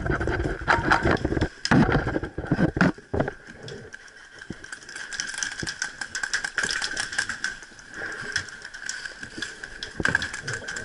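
Airsoft gunfire: a run of sharp single pops at irregular spacing, thickest in the second half. Loud low rumbling noise covers the first few seconds, and a steady high whine runs underneath.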